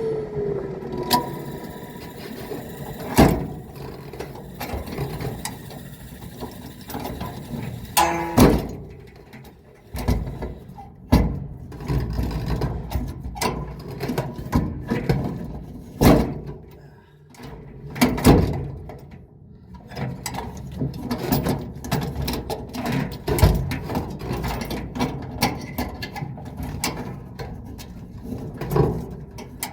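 Irregular knocks, clicks and clanks of metal parts being handled inside an opened clothes dryer during a repair, with several louder knocks spread through.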